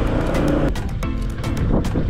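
Background music with a steady beat, over the low rumble of a motorcycle ride.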